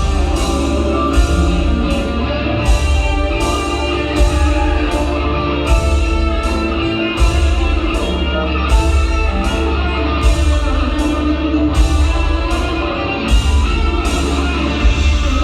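High school marching band playing its field show: sustained band chords over a heavy low bass, with a crisp percussion stroke on a steady pulse about every three quarters of a second.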